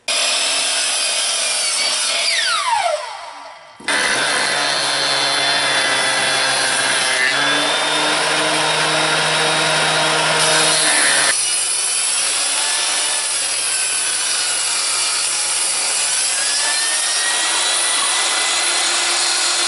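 Power woodworking tools cutting and planing a piece of cypress, in several spliced clips. A saw cuts and its motor winds down with a falling whine about three seconds in. After an abrupt cut come a benchtop jointer planing the wood and then a saw running again with a steady whine.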